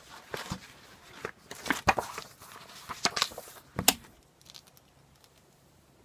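Paper pages of a spiral-bound notebook being turned and handled: a string of crisp rustles and light taps that stops about four seconds in.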